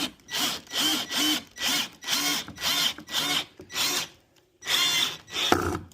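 Power drill run in short trigger pulses, about two to three a second, its motor whining up and falling back with each pulse, with a brief pause about two-thirds of the way through.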